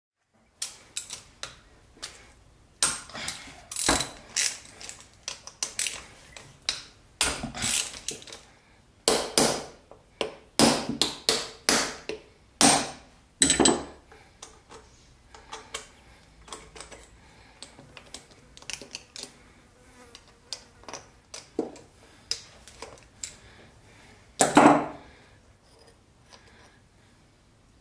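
Hand tools and loose metal parts being worked on a Honda-clone motorcycle engine as its cylinder head is taken apart: irregular clicks, clinks and rattles of metal on metal, busiest in the first half and sparser later, with one louder clatter near the end.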